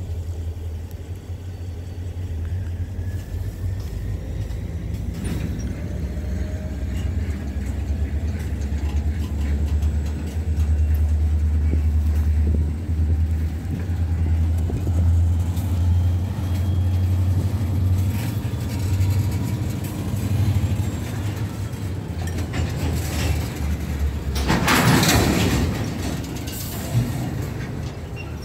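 Freight train's boxcars rolling past at close range: a steady low rumble of wheels on the rails, with a louder burst of rattling noise near the end.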